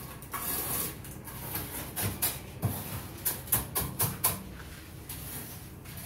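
Mason's trowel scraping and tapping wet cement mortar as it is smoothed onto a wooden-formed concrete sink counter, with a quick run of sharp scrapes and taps between about two and four seconds in.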